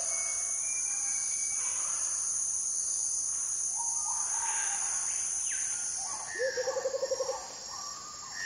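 Animated logo intro sound effects: a steady high-pitched hiss with short chirps and blips over it, then a quick fluttering trill about six and a half seconds in.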